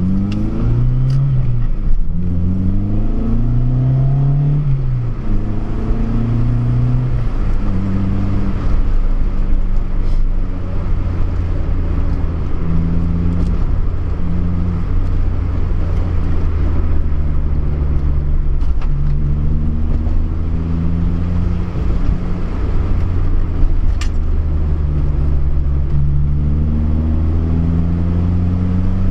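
Honda Civic Si (EP3) engine pulling through the gears while driving. In the first several seconds the pitch climbs and drops back with each shift; it then runs at a steadier pitch, and climbs again near the end.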